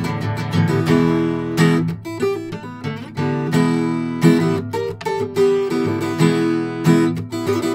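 Acoustic guitar played solo, chords strummed and picked with a fresh strike every half second to a second, an instrumental stretch without singing.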